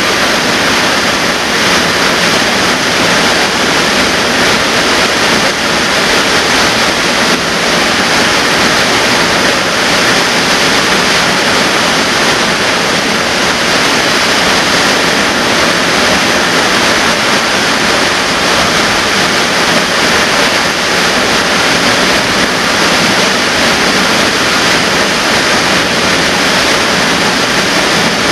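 A waterfall plunging into a rocky pool, a loud, steady rush of falling water.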